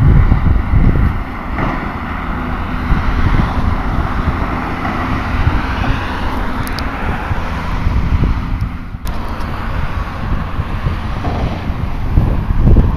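Heavy diesel construction machinery running at a worksite, the Hyundai R360LC-7A crawler excavator working beside a piling rig, as a steady low rumble. A swell of passing road-traffic noise builds and fades in the middle, and wind buffets the microphone at the start and near the end.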